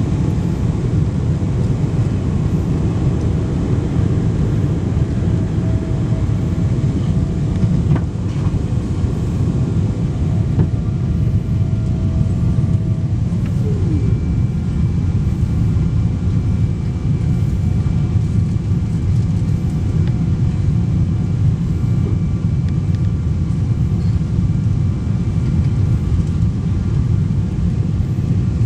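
Boeing 777-200ER cabin noise during the climb just after takeoff: a loud, steady, low roar of the engines and rushing air, heard from a window seat by the wing. A single click comes about eight seconds in, and a short falling whine about halfway through.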